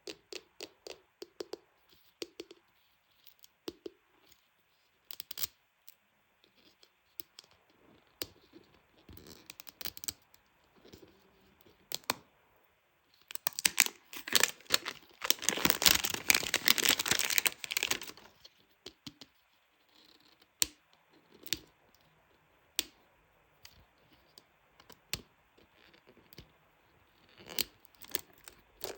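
Packaging being handled and opened by hand: scattered clicks and taps, with a few seconds of dense crinkling and tearing about halfway through.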